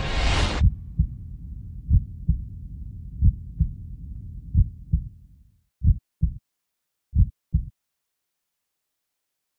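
Heartbeat sound effect: about six paired low thumps, lub-dub, evenly spaced about 1.3 seconds apart, starting as a song cuts off in the first half second.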